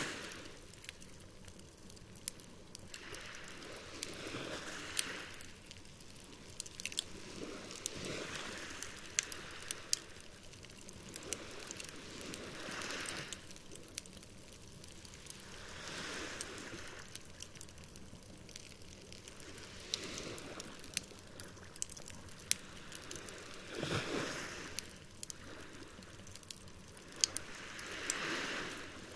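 Campfire crackling with scattered sharp pops, over small waves washing onto the shore, each wash swelling and fading every three to four seconds.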